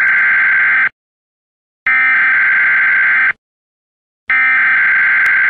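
Emergency Alert System data-header tones: bursts of digital data tone, the first ending about a second in, a second full burst, and a third starting near the end, each about a second and a half long with about a second of silence between.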